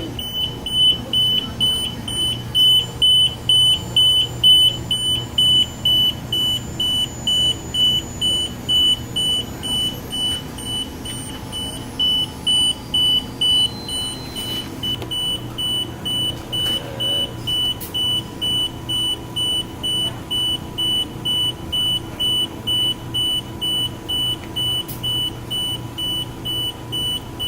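Alarm buzzer on an industrial conveyor furnace's control system beeping in a steady high-pitched tone about twice a second, an alarm still waiting to be acknowledged at the controls. A low steady machine hum runs underneath.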